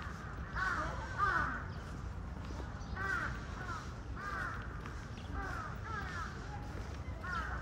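Crows cawing repeatedly, short harsh calls in groups of two or three, over a low steady background rumble.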